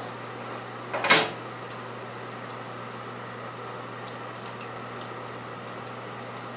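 Handling noise from hand work on hoses and parts: one brief clatter about a second in, then a few faint light clicks, over a steady low hum.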